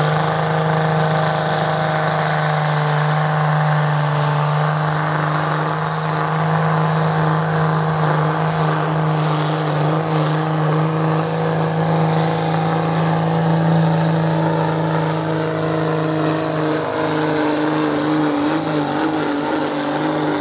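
Competition pulling tractor's engine running hard and steady under load as it drags the weight sled, a loud, unbroken drone that holds nearly one pitch.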